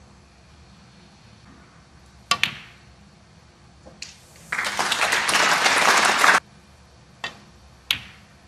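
Snooker balls clicking: a sharp knock of cue ball on ball about two seconds in, and two more clicks near the end. In the middle, about two seconds of audience applause, the loudest sound, which stops abruptly.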